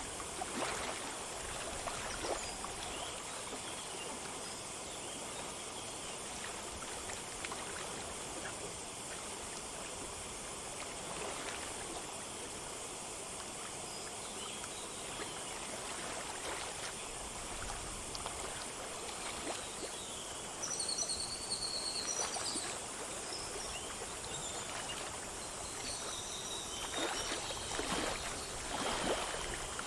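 A small stream running over stones: a steady rush of water with occasional gurgles. Birds chirp in the second half.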